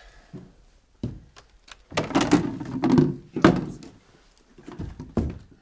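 A series of heavy thunks and knocks: one about a second in, a dense cluster of loud knocks and clatter between about two and three and a half seconds, and two more near the end.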